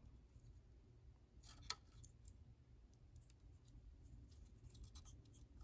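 Near silence: faint room tone with a few faint, short clicks, one a little louder about a second and a half in, from soldered hookup wires being handled over the plastic lantern base.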